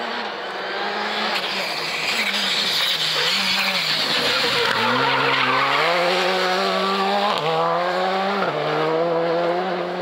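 Škoda Fabia R5 rally car engine on the throttle as the car slides through a tight hairpin, with a loud hiss of tyre noise in the middle. It then pulls away, the engine pitch climbing and dropping in steps as it shifts up through the gears.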